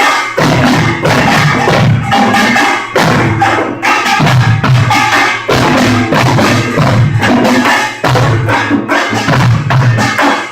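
Korean pungmul percussion ensemble playing a loud, driving rhythm: kkwaenggwari small gongs clanging over janggu and buk drum beats. Harsh, overloaded phone-microphone sound.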